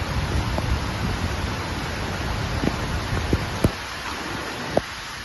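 Steady rain with a low rumble underneath that eases a little past halfway. A few louder individual drops land close by, the sharpest two near the end.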